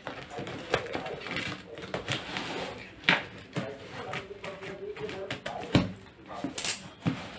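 Scissors cutting through packing tape on a cardboard shipping box: scattered sharp snips and scrapes with rustling tape and cardboard, and a louder rip of tape near the end.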